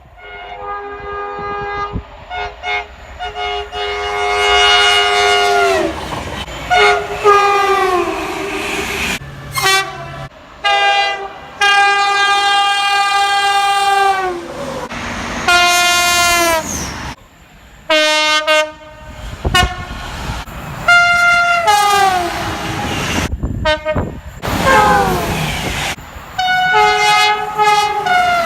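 A rapid succession of British main-line locomotive and multiple-unit horns from different passing trains, each blast held for one to several seconds, many sliding down in pitch as the train goes by. The horns change abruptly from one clip to the next.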